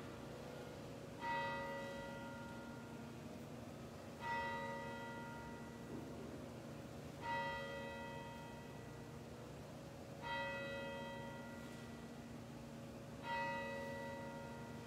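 A single church bell tolling slowly, five strikes about three seconds apart, each at the same pitch and ringing on as it fades.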